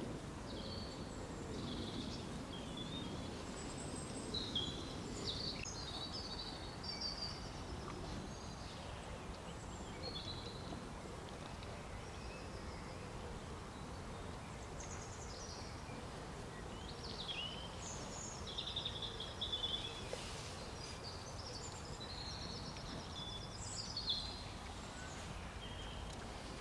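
Outdoor background noise, steady and low, with small birds chirping and trilling on and off over it.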